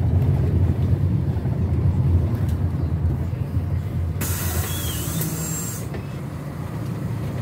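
Minibus engine running at low speed as the vehicle slows to a stop, then, about four seconds in, a sudden loud hiss of released compressed air lasting under two seconds. The engine settles to a quieter idle afterwards.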